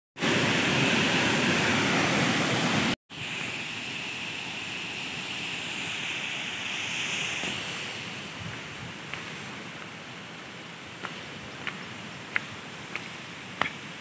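Waterfall pouring, a loud, dense rush of falling water that cuts off abruptly about three seconds in. A softer steady rush follows and fades, with a few short, sharp ticks in the last few seconds.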